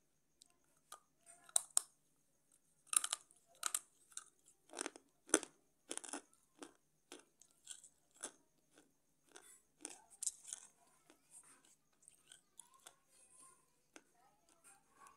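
Slate pencil being bitten and chewed close to the microphone: a run of sharp, irregular crunches, loudest and closest together in the first half, thinning to softer chewing toward the end.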